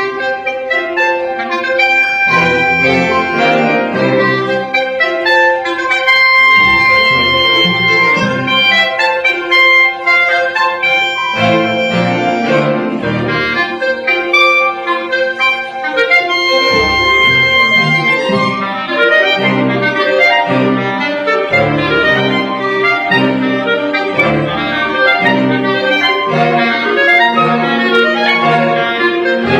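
Live orchestra playing classical music, with long held chords partway through and then busier moving passages.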